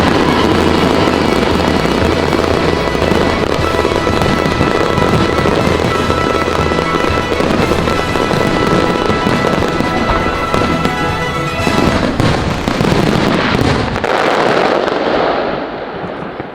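Fireworks display: dense, continuous crackling and popping of aerial shells, with music playing at the same time. The bursts thin out and fade near the end.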